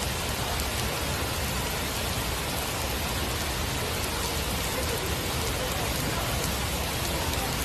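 Heavy rain falling and splashing on hard surfaces, a steady, even hiss with fine drop ticks.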